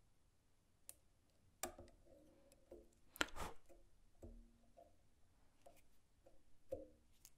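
Quiet light clicks and taps of fly-tying tools handled at the vise while the thread is whip-finished at the fly's head, the sharpest click about three seconds in.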